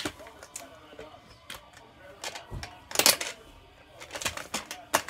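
Irregular plastic clacks and knocks of a tabletop hockey toy: plastic player pieces striking a small puck and hitting the plastic board. The loudest knock comes about three seconds in, with a quick run of clicks near the end.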